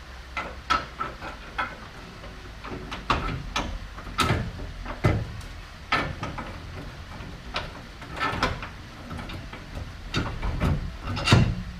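Metal tools and steel suspension parts clinking and knocking at irregular intervals, some strikes ringing briefly, as parts are handled and bolted back onto the car.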